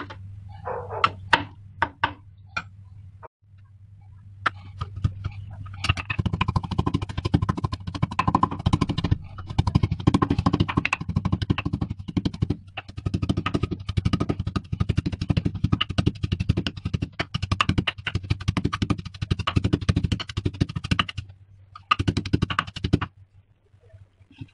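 Fresh ginger pounded with a metal pestle in a small steel mortar. A few separate knocks come first, then rapid, steady strikes run for about fifteen seconds, stop briefly, and resume for about a second near the end.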